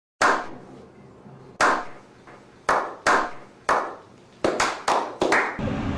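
About nine sharp, separate impacts, each with a short ring, irregularly spaced and coming closer together near the end.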